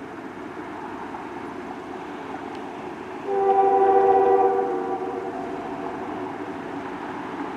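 Diesel locomotive's multi-chime air horn blowing one long blast as the train approaches, starting about three seconds in as a chord of several steady notes and fading out over the following few seconds, over a low steady rumble.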